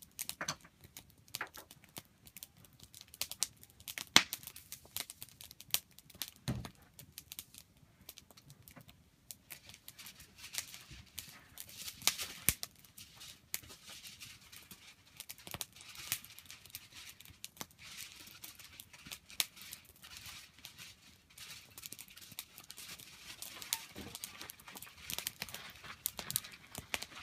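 Wood campfire crackling and popping: irregular sharp snaps over a faint hiss, with a low thump about six seconds in.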